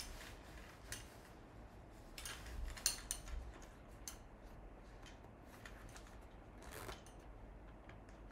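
Faint, scattered clicks and taps from a computer keyboard and mouse, a cluster of them about two to three and a half seconds in, over low room noise.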